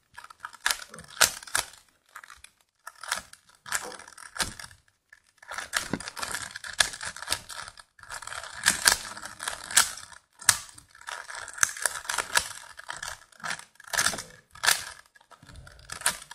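A 3x3 Rubik's Cube being scrambled by hand: quick, irregular plastic clicks and rasps as its layers are twisted, with a few brief pauses.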